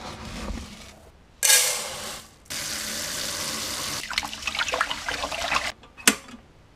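Rice being prepared for cooking. Dry rice is scooped and poured into a metal pot in a loud rush. Then a tap runs steadily into the pot, and a hand swishes the rice around in the water with splashing and grains knocking. About six seconds in comes one sharp click as the cook switch of an electric rice cooker is pressed down.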